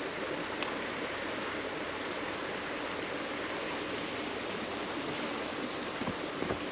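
Steady rush of flowing creek water, with a few light clicks near the end.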